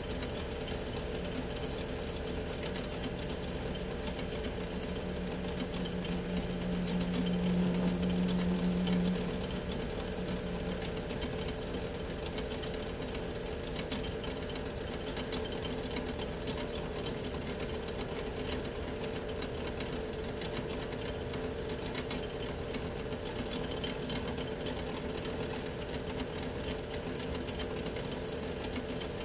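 Metal lathe running with a boring bar cutting the bolt-nose recess into the face of a Remington 700 steel receiver, a steady machine hum and cutting noise. About five seconds in, a low tone swells a little louder for a few seconds, then fades back.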